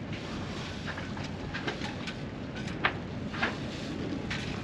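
Steady wind buffeting the microphone, with about half a dozen short, sharp snaps and clicks from a large cloth sunshade being shaken out and handled; the loudest snap comes about three seconds in.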